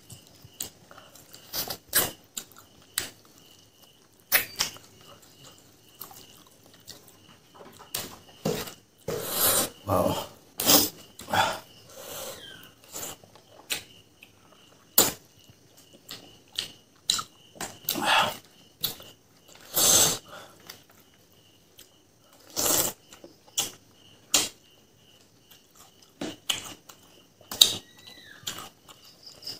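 Close-miked mouth sounds of a person eating rice and fried pork with the hands: wet smacking and chewing in irregular bursts. A faint, high, steady pulsing tone runs underneath.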